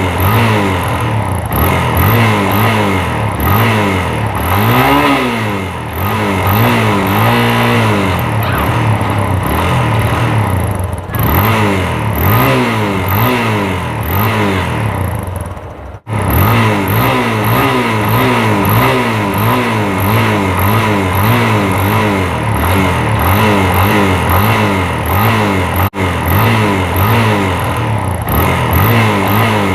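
Stock exhaust of a 2007 Yamaha Fazer YS250's single-cylinder engine being revved again and again while standing, the pitch climbing and dropping back with each blip of the throttle. The sound breaks off abruptly about halfway through and again near the end.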